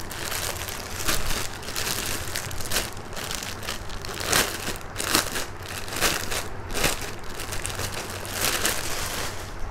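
Crinkling and rustling in irregular bursts as a newly bought kurti is handled and taken out of its packaging.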